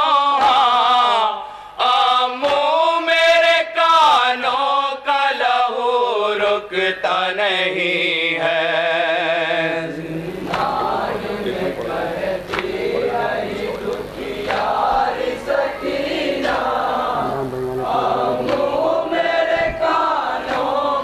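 Men's group reciting a Shia nauha lament: a lead voice and a chorus of men chant long, drawn-out wavering lines in unison. About halfway through, it turns into a denser, more crowded mass of overlapping voices.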